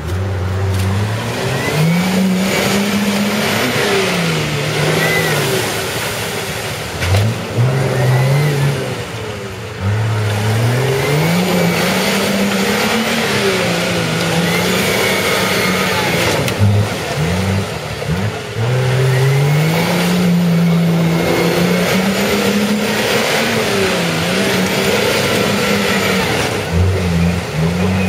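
Nissan Patrol GR's engine revving hard over and over as the 4x4 struggles, stuck deep in a mud bog. The revs climb and fall in long surges several times, with short quick blips near the end.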